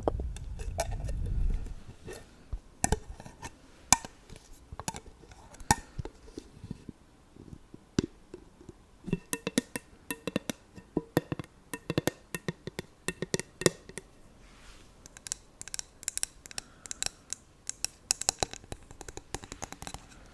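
Fingernails tapping and clicking on a glass candle jar in quick, irregular runs of taps, with a low rumble of handling in the first second or so.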